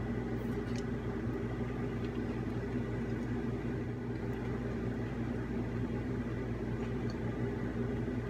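Steady low mechanical hum made of several fixed tones, with a few faint clicks about half a second in.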